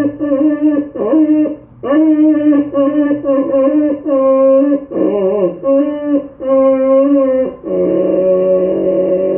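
A dog howling in a run of drawn-out, wavering notes, each about half a second to a second long, with short breaks. From about eight seconds in, a steadier, lower held note takes over.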